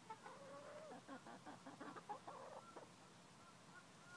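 Ameraucana hen clucking faintly: a run of short calls, with one longer drawn-out call about half a second in.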